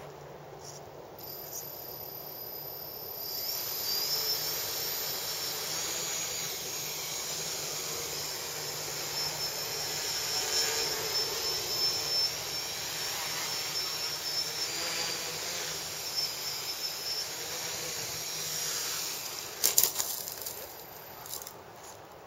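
Radio-controlled tricopter's three electric motors and propellers spinning up, then a steady high whine with propeller buzz as it lifts off and hovers. Near the end come a few sharp knocks as it comes down, and the motors stop.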